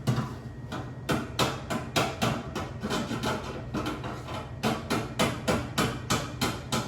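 Repeated hammering blows on the wall, a quick steady run of about three to four strikes a second.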